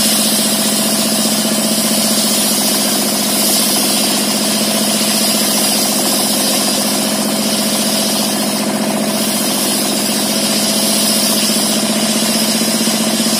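Single-cylinder dompeng diesel engine running steadily under load, driving a table circular saw blade that rips a plank lengthwise, with a steady high hiss from the blade over the engine.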